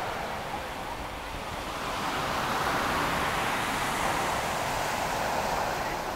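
Surf washing up a sandy beach, a steady rush that swells about two seconds in.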